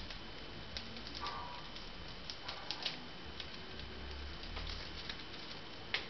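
Chipmunk eating: small scattered clicks and crunches from gnawing and chewing food held in its paws, the sharpest click about six seconds in.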